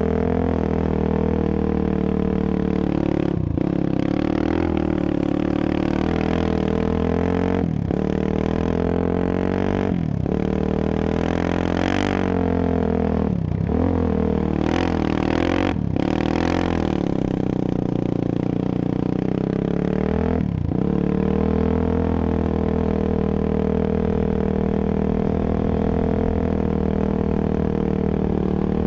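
Sport quad ATV engine running under throttle on a sandy trail, its pitch rising and falling with the throttle. The engine note breaks off sharply for a moment about six times, as when the rider lets off or shifts.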